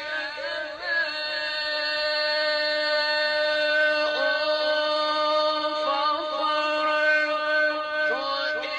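Quran recitation: one voice chanting a long, drawn-out melodic line, held steady for seconds at a time. Short wavering, ornamented turns come about a second in, again around four seconds and near the end.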